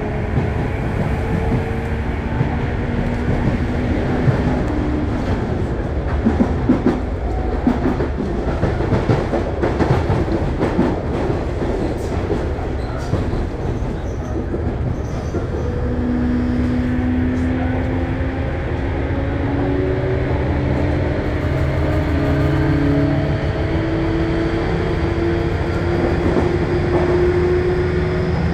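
Sotetsu new 7000 series EMU running, heard from inside the car above its VVVF inverter: motor and inverter whine over a rumble of wheels on rail, with rail-joint clatter about a third of the way in. From about halfway the whine climbs steadily in pitch as the train gains speed.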